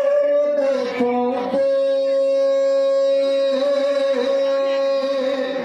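Sikh kirtan music played over a PA: harmonium holding long steady notes with singing, the pitch stepping to a new note about one and a half seconds in.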